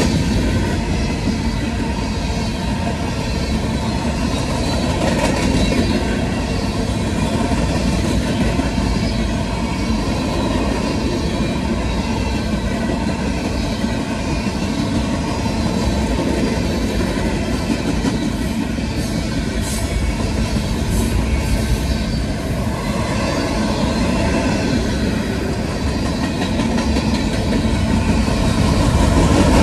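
Freight cars of a mixed freight train rolling past close by at speed: a steady rumble and clatter of steel wheels on the rails, with a few brief high-pitched squeaks about two-thirds of the way through.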